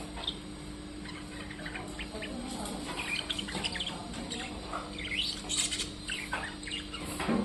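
Small birds chirping and tweeting in many short, scattered calls with quick pitch sweeps, busier in the second half, over a steady low hum.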